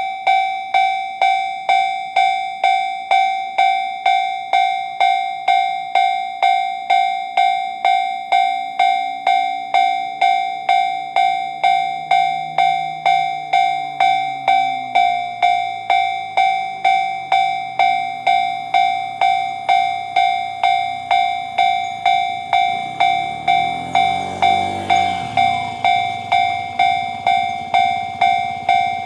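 Japanese level-crossing electronic alarm bell in the JR standard tone, ringing steadily at about one and a half strikes a second. Underneath, an E129 series electric train is heard: a low hum that rises and falls as it approaches, then the noise of it running past the crossing about 24 seconds in.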